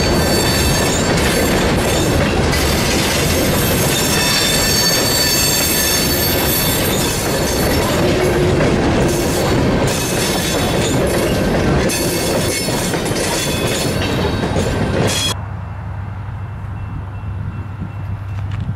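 Freight train cars rolling past with steel wheels squealing on the rails and clattering over the track. About three-quarters of the way through, the train sound cuts off suddenly, leaving a steady low hum.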